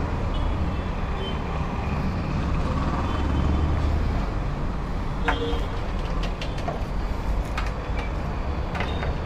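Steady low engine rumble, with a few sharp clicks about five seconds in and again near the end.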